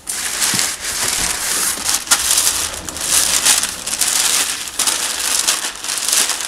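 Packing paper crinkling and rustling in uneven surges as paper-wrapped pieces are handled and lifted out of a cardboard box.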